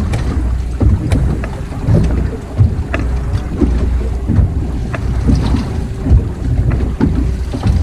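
Wind buffeting the microphone on a fishing boat at sea, over a steady low rumble, with many short clicks and knocks.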